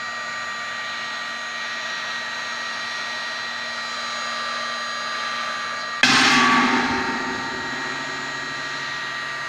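Electric paint-stripper heat gun blowing steadily, an even hiss of air with a faint steady whine, while it melts the solder on a laptop circuit board to free the components. About six seconds in comes a sudden loud knock that fades over about a second.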